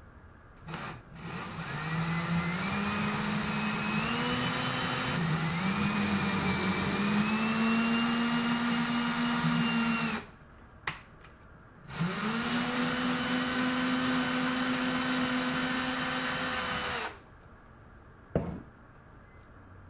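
Ryobi cordless drill motor driving a tap into a metal L bracket, in two runs: a first run of about nine seconds whose pitch wavers and climbs in steps as the tap threads in, then, after a couple of clicks, a steadier run of about five seconds in reverse to back the tap out. A single sharp click comes near the end.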